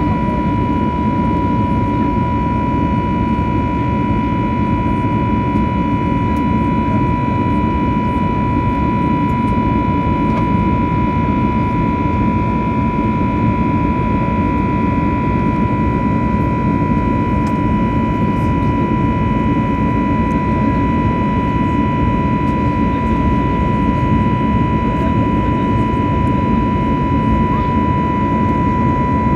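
Airbus A320neo's turbofan engines in flight, heard inside the cabin from a window seat over the wing: a steady low rumble with an unchanging high whine of several tones, strongest near 1 kHz.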